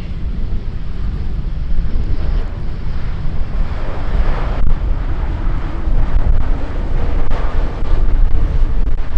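Airbus A350-1000 airliner with Rolls-Royce Trent XWB engines landing, a loud jet rumble as it touches down and rolls out. The noise grows louder in the second half.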